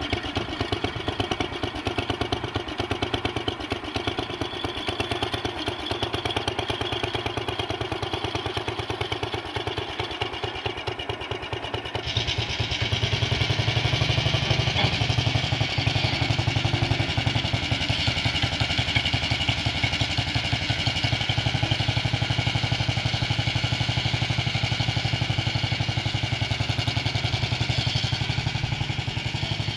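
Small engine of a Howard garden tractor running steadily with a fast, even beat. About twelve seconds in it gets louder, with a stronger low rumble.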